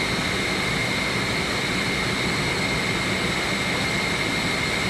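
Steady machinery noise in a chiller plant room: an even rush with a constant high whine and a low hum.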